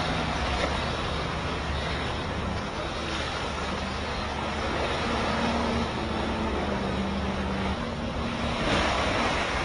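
Engine of an amphibious car running steadily as it drives through water, with water rushing and splashing around the hull and a low hum whose pitch shifts slightly now and then.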